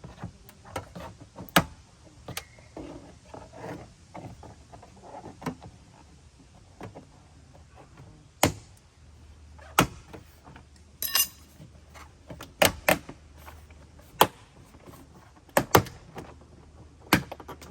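Plastic door-panel retaining clips being pried and popped out of a Jeep Liberty's door, heard as an irregular string of sharp clicks and knocks. A short ringing rattle comes about eleven seconds in.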